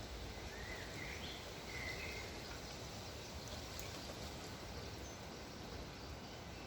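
Wind blowing through trees as a steady rushing, with a few short bird chirps in the first couple of seconds.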